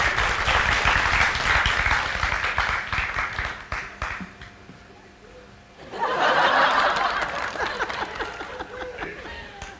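Studio audience laughing and applauding. The laughter and clapping die away after about four seconds, then a second wave rises about six seconds in and fades near the end.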